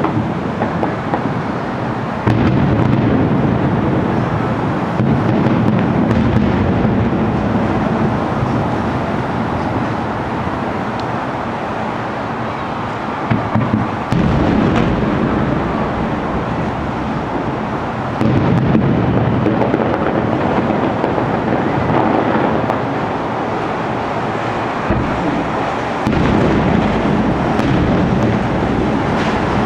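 Aerial fireworks bursting in a dense, continuous rumble of booms, with sudden louder swells about two, five, fourteen, eighteen and twenty-six seconds in.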